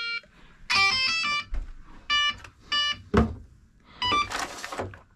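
Losi Promoto MX RC dirt bike's speed controller sounding its first power-on tones through the motor: several groups of short beeps stepping up and down in pitch like a little tune. A short hiss near the end and a couple of knocks come between them.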